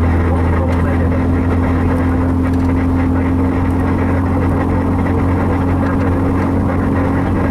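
Steady engine and road drone heard from inside a moving car, with an engine tone that climbs slowly.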